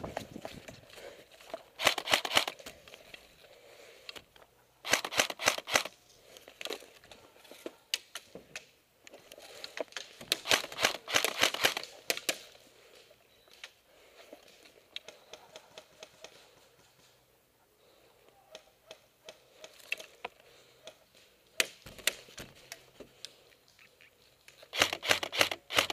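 Airsoft electric guns firing in short bursts, each a rapid mechanical clatter of shots. The bursts come every few seconds, the longest about two seconds just past the middle, with another pair near the end.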